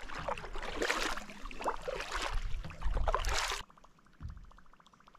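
Double-bladed paddle strokes swishing through calm lake water beside a solo canoe, about one a second, with a low wind rumble on the microphone. About three and a half seconds in the sound drops sharply to a faint, fast, even ticking of a spinning fishing reel being cranked.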